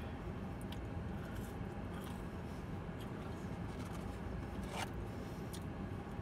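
Steady low rumble of a car interior, with faint clicks and rustles as fries and food packaging are handled, and a brief squeak near the end.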